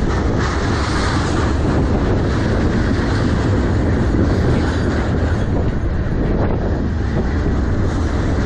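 Freight train boxcars rolling past close by: a steady, loud noise of steel wheels running on the rails, heaviest in the low end.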